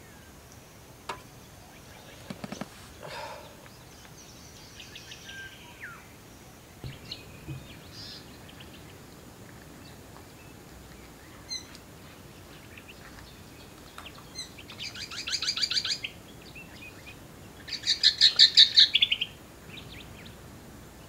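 Wild birds calling: scattered short chirps, then two loud, rapid chattering trills of about a second and a half each near the end.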